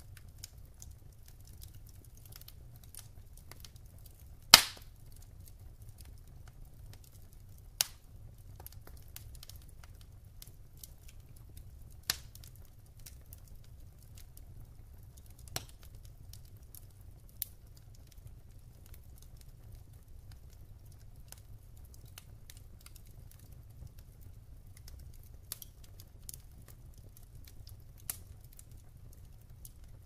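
Wood logs burning in a fireplace: a faint steady crackle over a low rumble, broken by sharp pops. The loudest pop comes about four and a half seconds in, with a handful of smaller ones after it.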